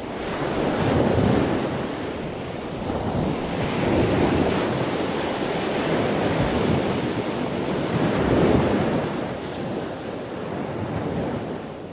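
Ocean surf washing onto a beach, with wind noise; the waves swell and fall back three times, and the sound fades out near the end.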